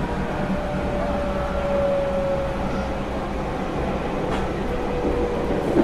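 Cabin running sound of a JR Central 311 series electric train: a steady low rumble from the running gear, with a motor whine slowly falling in pitch as the train slows, and air-conditioning noise mixed in. One light click about four seconds in.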